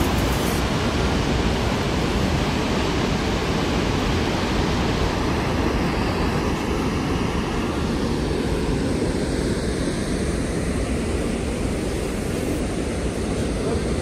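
The Rhine Falls, a wide river waterfall, rushing in a loud, steady wash of falling white water, heaviest in the low end. The higher hiss softens about halfway through.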